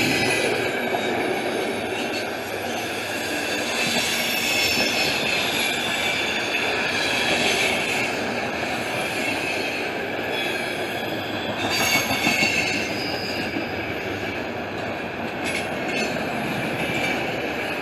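Freight train cars rolling past on the rails: a continuous rumble of wheels on track, with high-pitched wheel squeal and a few sharp clanks.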